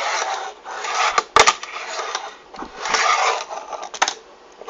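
A wooden fingerboard being handled: scraping and rustling, with sharp clicks about a second in and again near the end.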